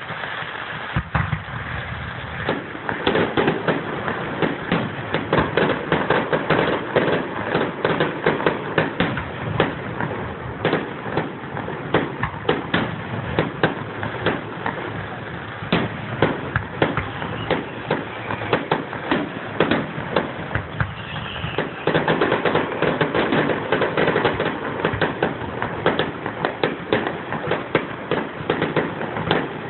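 Firecrackers going off in a rapid crackling string, many sharp pops a second. The crackling thickens about two and a half seconds in, thins for a few seconds past the middle, then picks up thickly again.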